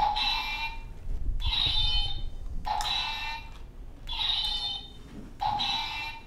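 Light-up toy sword's electronic sound effect: a buzzing, alarm-like tone that sounds five times, about every second and a half.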